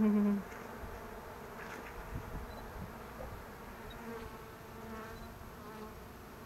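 Honeybees buzzing around an opened hive: one bee buzzes loudly right by the microphone for about half a second at the start, then a fainter steady hum of many bees.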